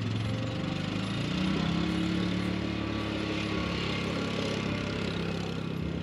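A motor vehicle engine running steadily, its pitch rising about a second and a half in and then holding.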